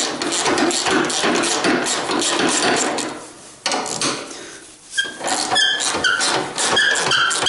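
Quarter-inch drive ratchet clicking rapidly as it undoes a 12 mm bonnet hinge bolt, pausing briefly midway. Short high squeaks come in between the clicks in the second half.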